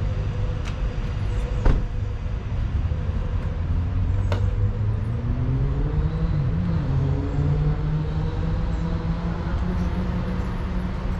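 Motor vehicle engine running and traffic rumble, the engine's pitch rising about halfway through as it speeds up, with a couple of sharp clicks early on.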